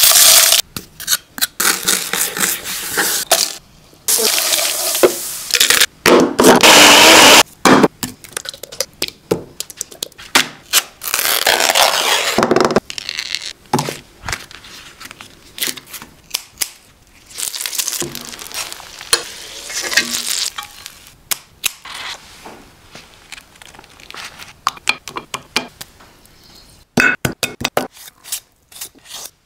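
Close-miked cooking sounds: food sizzling and being stirred in a pan, with utensils scraping and clattering on cookware, in irregular stretches broken by short pauses.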